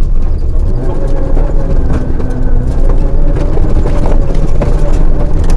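Rally car's engine running hard on a gravel stage, heard from inside the cabin, its pitch shifting with the revs over a heavy rumble. Scattered sharp knocks from stones and gravel hitting the car.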